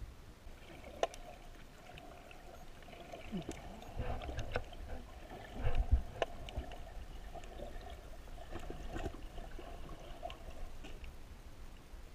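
Underwater sound picked up by a camera in its housing: a steady faint hum with scattered sharp clicks, and a few low thumps and knocks, the loudest about halfway through.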